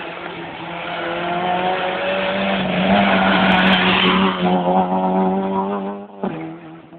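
Rally car driving past at racing speed: the engine note grows louder as it approaches and is loudest about three to four seconds in as it goes by, then drops in pitch and fades as it pulls away.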